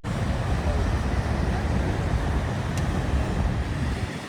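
Steady, low, rumbling roar of the Niagara River's rushing water and falls, with wind on the microphone.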